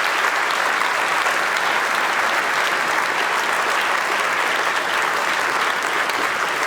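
Congregation applauding steadily, a large crowd clapping.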